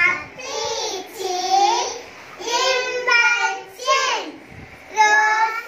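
A young child singing into a microphone: short, high-pitched sung phrases with gliding pitch and brief pauses between them.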